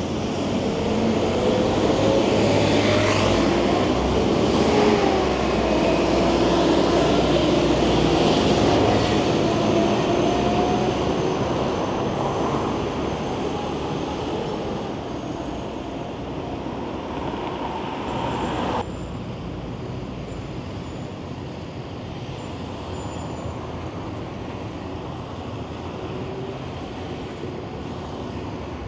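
Street traffic with a large vehicle passing close by, its engine note shifting up and down, loudest over the first ten seconds and then fading away. The level drops abruptly about nineteen seconds in, leaving a steady traffic hum.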